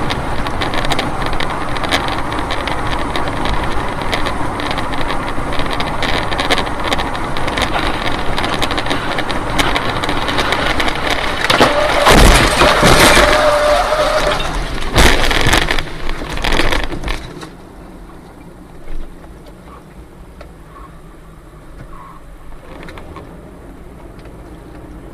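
Steady road and engine noise inside a moving car, then about halfway through a loud crash as a Tupolev Tu-204 airliner breaks apart beside the highway. Several more crashes and impacts of flying wreckage follow over the next few seconds, and then the road noise is much quieter.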